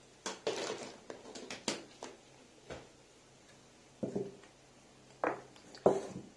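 A few short, scattered knocks and clinks of a small ceramic salt cellar and spoon being handled on a tabletop, the sharpest near the end.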